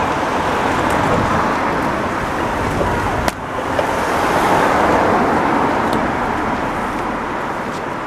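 Road traffic going by: a steady rush of tyres and engines that swells a little around the middle and eases toward the end, with one sharp knock about three seconds in.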